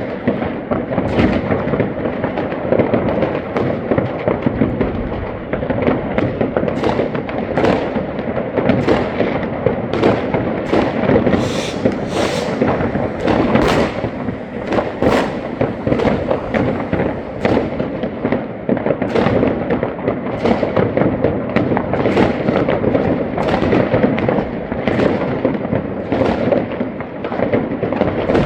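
Many fireworks going off at once: a dense, continuous crackle and rumble with sharp bangs standing out about once or twice a second.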